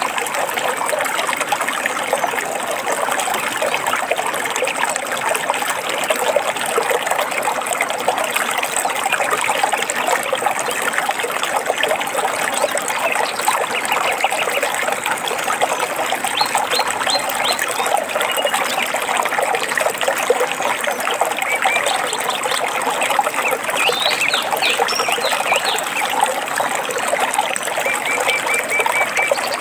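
Flowing water of a forest stream, trickling and splashing steadily. Short bird chirps come in several times in the second half.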